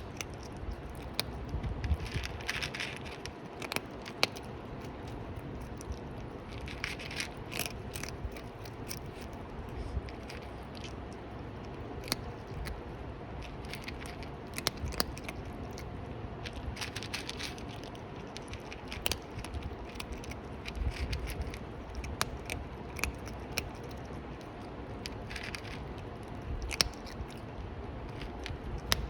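Close-up chewing and biting of crunchy food: irregular sharp crunches and clicks, thickening into louder bursts of crunching every few seconds.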